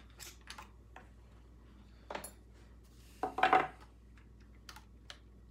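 Small metal and plastic chainsaw parts clicking and knocking as the carburetor area of a Husqvarna 246 is taken apart by hand. A louder short clatter comes about three seconds in as a removed part is set down on the wooden workbench.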